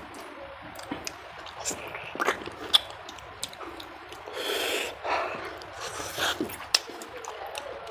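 Close-up mouth sounds of a man eating mutton curry with his fingers: wet chewing and lip smacks with many short sharp clicks, and a longer hissing sound about halfway through.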